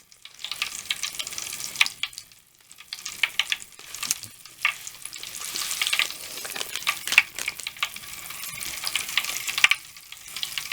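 Mr Bubble Magic Bath Crackles popping and fizzing in water: a dense, sizzling crackle of many tiny snaps over a hiss, dipping briefly about two and a half seconds in.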